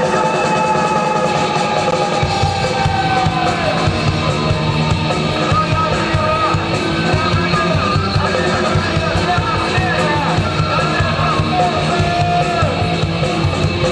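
Rock band playing loudly, with the bass and drums filling in about a second in and melody lines gliding above.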